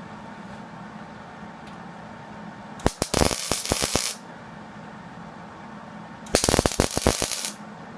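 Hobart 135 MIG welder laying two short tack welds on sheet steel, each a crackling, sputtering arc lasting about a second, the first about three seconds in and the second near the end.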